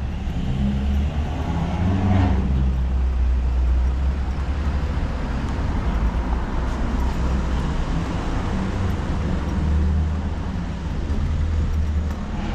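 A car driving slowly past close by on a town street, over a steady low traffic rumble.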